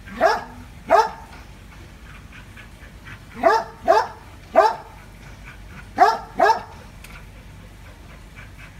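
A dog barking at a monitor lizard: seven sharp barks in three bursts of two, three and two, with short gaps between the bursts.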